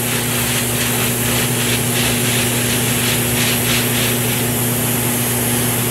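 Airbrush spraying paint along the edges of a paper stencil: a steady hiss that swells in quick pulses through the middle, over a steady low hum.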